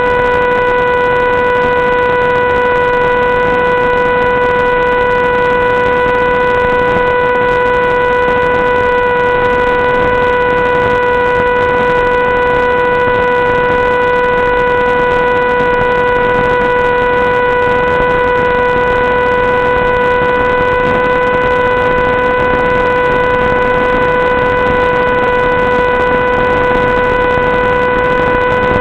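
A loud, unchanging buzz at one pitch over a constant hiss: electrical noise on the audio track, with no sign of a motor changing speed.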